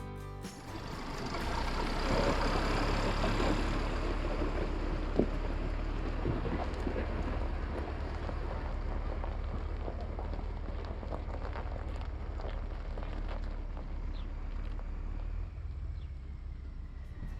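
A farm machine's engine running steadily, swelling about a second in and then holding, with scattered light clicks and rattles.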